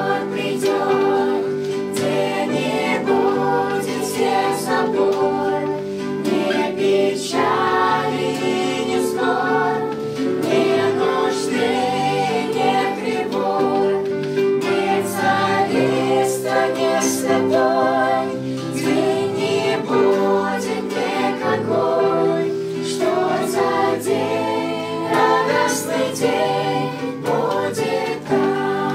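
A group of children and adults singing a Christian song together in unison, accompanied by a strummed acoustic guitar.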